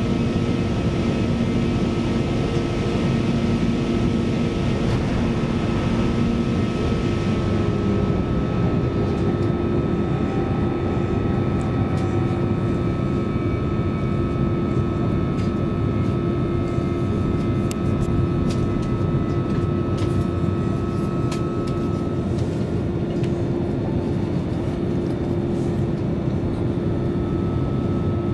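Interior of a CAF Class 331 electric multiple unit running along the line: a steady rumble of the wheels on the rails with a steady hum over it. A few light clicks and rattles come through in the second half.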